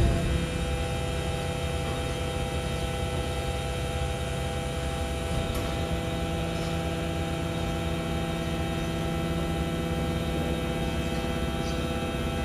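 Steady electric hum of a BYD electric garbage truck, several fixed tones held at an even level.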